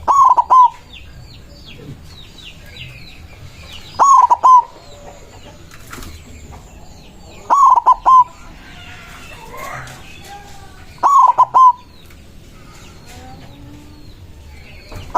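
White zebra dove (perkutut) singing its short three-note cooing phrase, four times about three and a half seconds apart, with small birds chirping faintly in the background.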